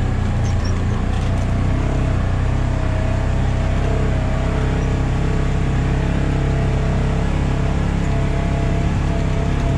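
Engine of a heavily loaded Ranger utility vehicle running steadily under load in low gear while it climbs a slope.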